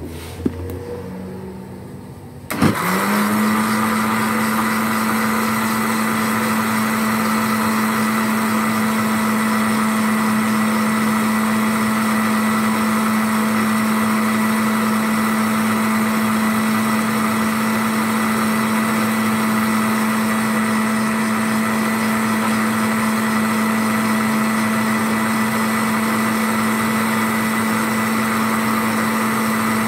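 Electric blender (mixer-grinder) switched on about two and a half seconds in, spinning up quickly and then running at a steady pitch as it blends a liquid milk and condensed-milk mixture. A sharp knock is heard shortly before it starts.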